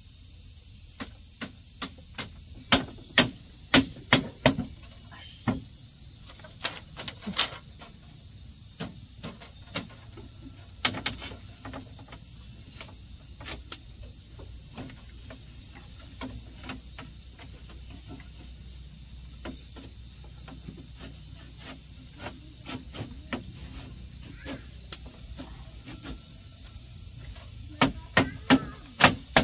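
Insects droning in one steady high tone, with scattered knocks and taps throughout. Two runs of loud, evenly spaced blows, about two a second, come a few seconds in and near the end.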